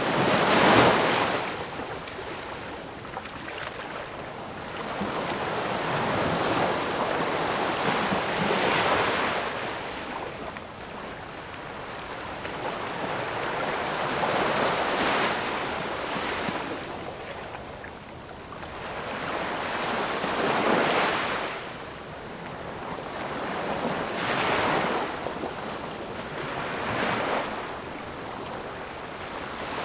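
Sea waves washing onto a beach, each one swelling up and fading away every few seconds, the strongest near the start.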